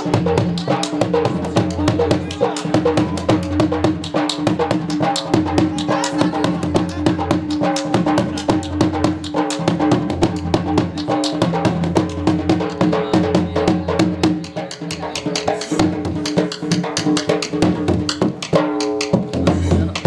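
Punjabi dhol drumming a fast, dense jhumar beat, with a sustained pitched melody or drone held over it; the drumming shifts briefly near the end.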